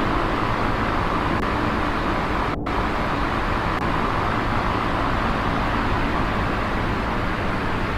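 Steady, dense noise with no clear tones, heaviest in the low and middle range, with a brief break in its upper hiss about two and a half seconds in.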